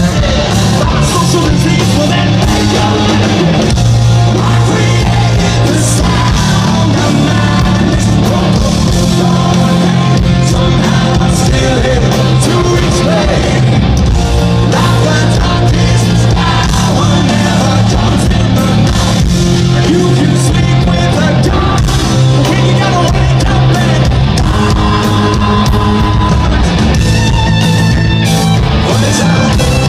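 Live hard rock band playing loud: distorted electric guitars, bass and drums with a lead singer.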